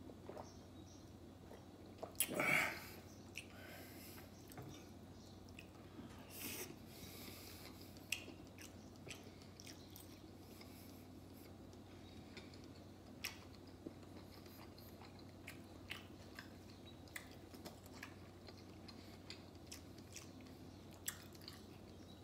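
A person eating breakfast: quiet chewing, with scattered light clicks of a metal fork against a ceramic plate. There is a brief louder sound about two and a half seconds in, and a faint steady hum underneath.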